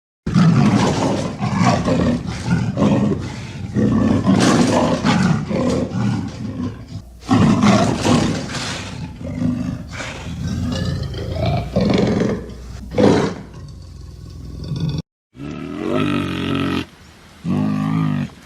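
Lion roaring and growling in a run of rough, loud calls. After a brief break near the end, a shorter, clearly pitched sound follows.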